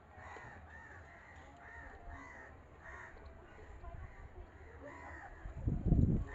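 Crows cawing over and over, about two calls a second. Near the end comes a burst of loud low thuds.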